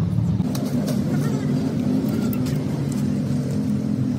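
A steady low engine drone, with a few sharp metallic clicks of hand tools against the rocker arms and injector linkage of an opened-up diesel engine.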